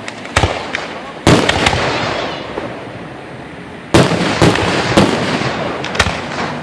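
Aerial firework shells bursting overhead: a sharp bang just after the start, a louder one about a second in, then a quick run of bangs from about four seconds on, with a noisy wash of sound between them.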